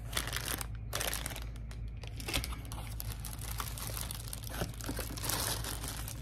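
Plastic bags crinkling and rustling as packaged radio accessories are handled, with a few light clicks.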